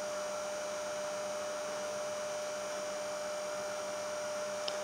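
Steady electrical hum with a faint hiss, one constant mid-pitched tone running through it without change.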